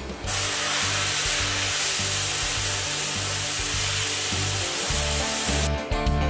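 Oxy torch flame hissing steadily as it heats a steel trailer leaf spring for re-hardening, over background music with a low beat. The hiss cuts off near the end, leaving guitar music.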